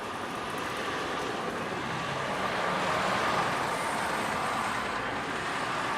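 Road traffic noise of passing vehicles, growing louder toward the middle and easing slightly after.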